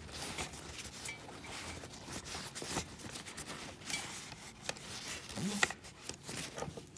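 Shop towel rubbing and wiping along greasy wires of a wire harness, an uneven scratchy rubbing with scattered clicks and knocks of handling.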